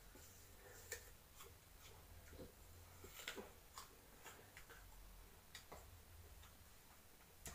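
Near silence: faint room tone with a low hum and scattered faint clicks at irregular intervals.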